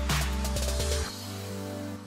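Background electronic music with a heavy beat that drops out about a second in, leaving sustained tones.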